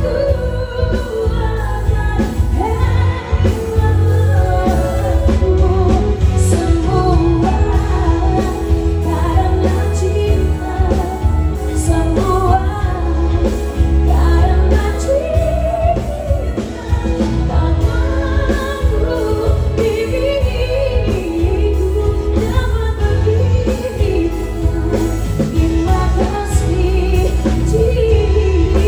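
A woman singing a pop song over a live band, with a strong, steady bass under the vocal line.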